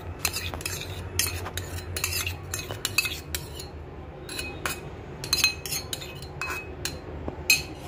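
A spoon clinking and scraping against a stainless steel bowl as dressing is scraped out and drizzled over a salad: many quick, irregular metallic clinks, with a low hum underneath.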